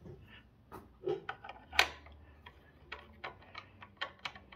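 Small metallic clicks and taps as a T-handle Allen key is pushed and fiddled into the hex holes at the top of an electric scooter's steering column, a quick irregular run of ticks with one louder click about two seconds in. The key being tried is not the right size.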